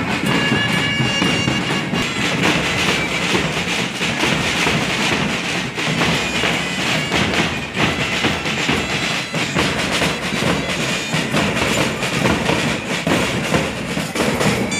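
Marching band playing in the street: shrill flutes carrying a tune over a steady beat of bass and snare drums.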